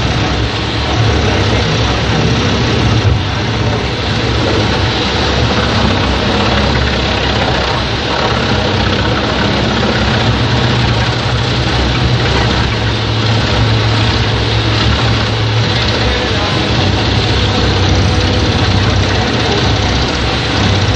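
Mus-Max Terminator 10 wood chipper running steadily, a low engine hum under a dense, even mechanical noise.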